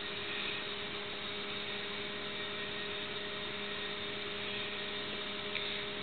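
Steady hiss with a low, constant electrical hum: room tone with no distinct events.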